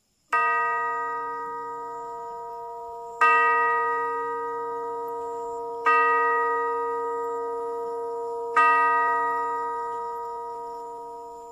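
A deep bell struck four times, about three seconds apart, each stroke ringing on and slowly dying away; the last stroke fades out gradually.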